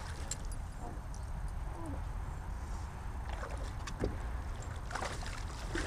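A hooked trout thrashing at the surface beside a drift boat as it is brought to the net: a few short splashes, with a longer spell of splashing near the end, over a steady low rumble.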